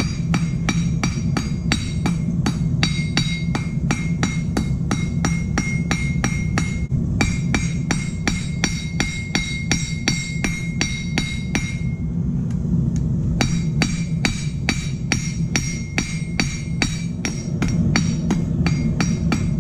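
Hand hammer striking red-hot steel on a length of railroad track used as an anvil, about three blows a second, each one ringing the rail; the smith is fanning out square steel stock into a bolt head. The blows pause briefly past the middle, then resume, over a steady low hum.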